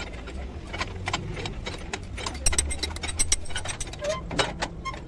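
Spanners and sockets clicking and clinking on the U-bolt nuts of a truck's leaf-spring mount as they are worked by hand: a run of sharp metallic ticks that grows denser and louder about halfway through. A low steady rumble runs underneath.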